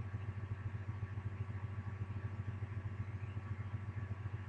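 Steady low hum with a fast, even flutter.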